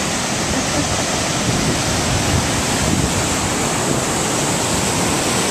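Ocean surf breaking on the shore, a steady rush of waves, with wind buffeting the microphone.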